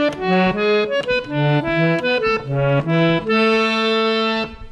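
Hand-pumped harmonium playing a quick run of reedy notes over lower bass notes, ending on a chord held for about a second before it stops.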